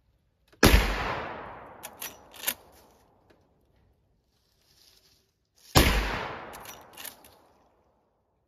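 Two shots from a Henry Big Boy lever-action rifle in .44 Magnum, about five seconds apart, each report trailing off over about a second; both rounds fire. A few sharp metallic clicks follow each shot as the lever is worked to eject and chamber the next round.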